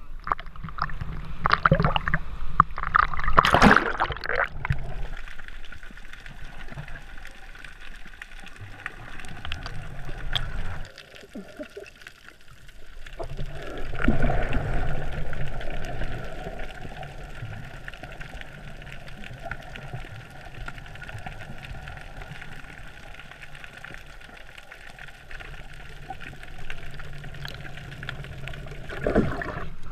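Water heard through a camera held underwater: a muffled, steady wash with gurgling. Several loud splashes come in the first few seconds.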